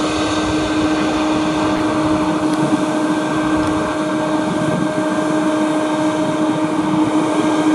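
Jet airliner engines running at idle close by: a steady hum with a constant whine over it, unchanging in pitch and level.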